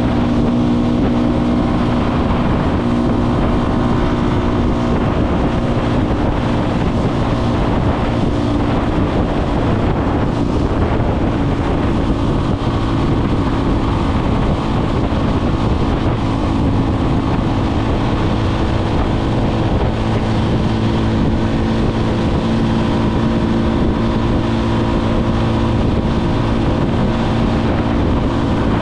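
Motorcycle engine running at a steady cruising speed, its note holding almost level, with wind rushing over the microphone.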